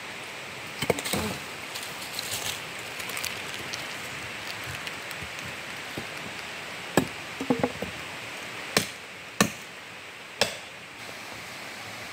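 Wooden sticks and bamboo lengths knocking against each other as they are handled and set down: a scattering of sharp wooden knocks, most of them in the second half.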